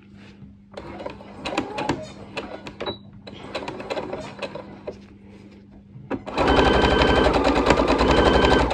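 Quiet clicks and rustles of fabric being handled and lined up, then about six seconds in an electric domestic sewing machine starts stitching a seam. It runs at a fast, even rate for a little over two seconds and stops near the end.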